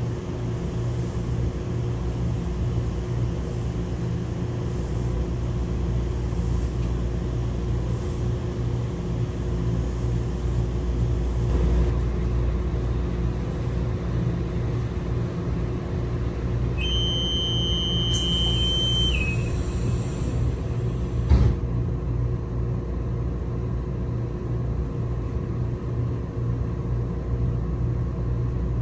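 Steady low rumble and hum of an idling rail vehicle, with a high electronic beep lasting about two seconds partway through and a single sharp knock a couple of seconds later.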